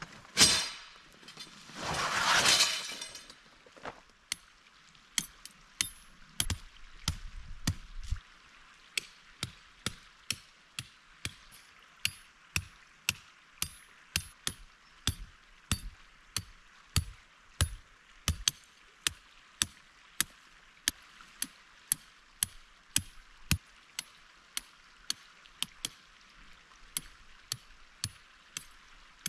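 A hammer driving metal tent stakes into gravelly ground: a steady run of sharp metallic taps, about one to two a second, each with a thin ring. Near the start there is one loud clack, then a swelling rush of noise lasting about a second and a half.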